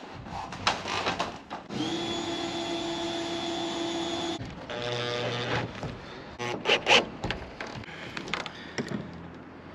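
Power drill running steadily for about two and a half seconds, then again briefly at a lower pitch, driving screws into a wooden frame, with knocks and clicks of wood and metal before and after.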